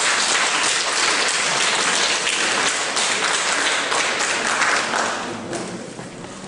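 A crowd applauding, the clapping thinning out and dying away near the end.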